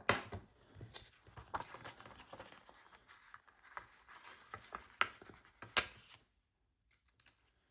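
Paper and sticker sheets rustling and crinkling as they are handled on a planner, with small clicks and taps, a couple of them sharper about five and six seconds in, then it goes quiet apart from a few light clicks.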